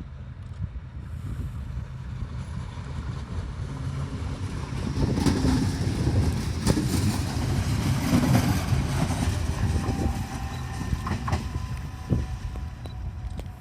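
DB Class 426 electric multiple unit going by on the rails. Its rumble swells to a peak in the middle with a few wheel knocks, then fades, and a faint steady whine shows near the end.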